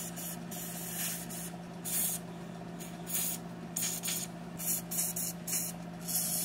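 Aerosol spray lubricant hissing from a can through a straw nozzle in a series of short bursts, aimed onto a snowblower control lever's spring and pivot points.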